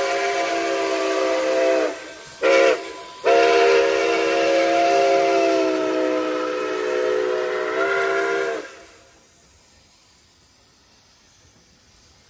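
Nickel Plate Road 765's steam whistle blowing a chord: a long blast ending about two seconds in, a short blast, then a long blast of about five seconds that cuts off sharply. Only faint background noise follows.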